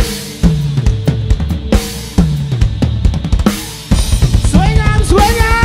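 Live band drum kit playing heavy accented hits on bass drum and crash cymbals, about one every second and a bit. About four seconds in the full band comes in with a fast, steady kick-drum beat and a sliding melody line over it.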